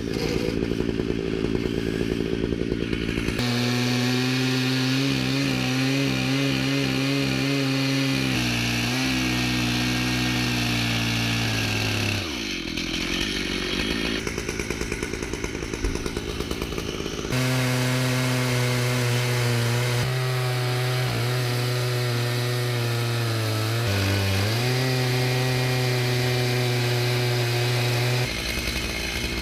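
Chainsaw on an Alaskan mill running at full throttle, ripping lengthwise through a deodar cedar log to cut a slab. The engine note sags briefly twice, as the saw bogs under the load, then climbs back.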